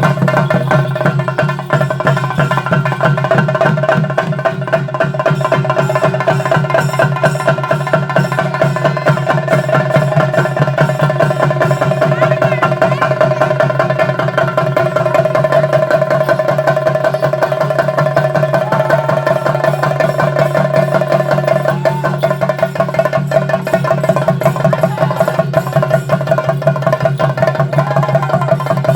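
Theyyam percussion ensemble: chenda drums beaten in a fast, unbroken roll over a steady held tone.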